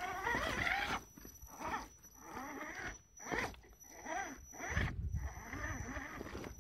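Electric motor and gear drive of an Axial RC rock crawler whining in short stop-start bursts, its pitch rising and falling as it crawls over rocks.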